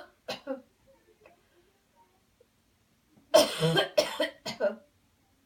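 A man coughing deliberately as an airway-clearing exercise: one cough near the start, then a quick run of about four coughs about three seconds in.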